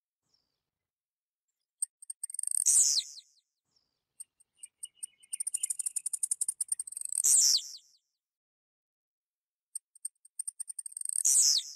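Blue-black grassquit (tiziu) singing three songs. Each is a run of fast, high ticks that builds into a short, loud buzzy note sliding down in pitch.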